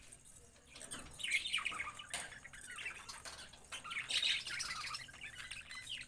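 Budgerigars chirping and chattering, many quick overlapping calls that start about a second in.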